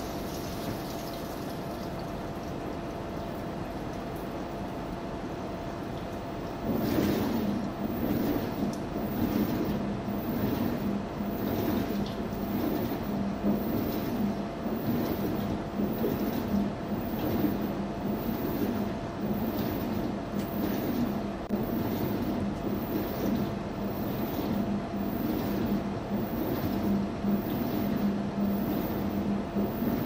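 Front-loading washing machine running with a steady hum. About seven seconds in, it grows louder with a low drone and uneven churning as the drum turns the wet laundry.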